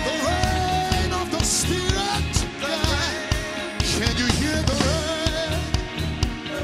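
Live gospel worship music: a man sings a spontaneous, wordless-sounding line into a microphone that bends and wavers in pitch, over a band with drum kit and bass.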